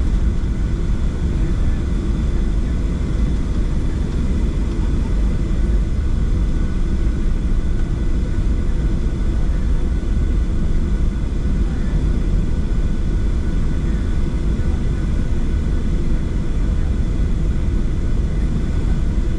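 Cabin noise aboard a Boeing 737-700: a steady low rumble from its CFM56-7B jet engines and airframe, with faint steady whining tones above it.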